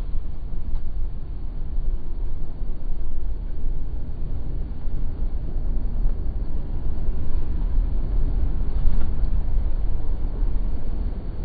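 Car driving through floodwater, heard from inside the cabin: a steady, deep rumble of tyres, water and engine, slowed down by the slow-motion recording so everything sounds low and muffled.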